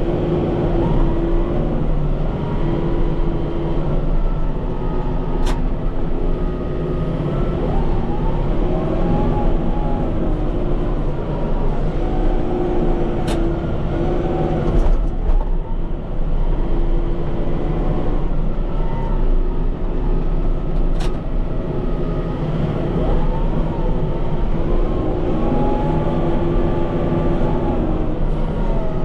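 Kubota M5-91 tractor's four-cylinder turbo-diesel engine running under load while pushing snow, its speed rising and falling. Three sharp clicks, about eight seconds apart, sound over it.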